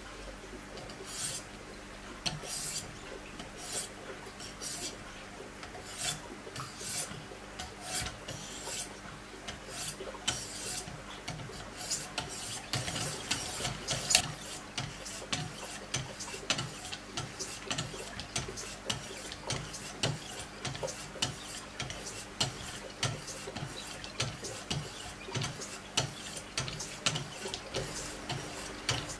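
Diamond stones of a Wicked Edge guided sharpener scraping in repeated strokes along the edge of a CPM-S90V steel Spyderco fixed blade, about one to two strokes a second and quicker later on. This is the 800- and 1000-grit stage of sharpening. One sharper clack about halfway through is the loudest sound.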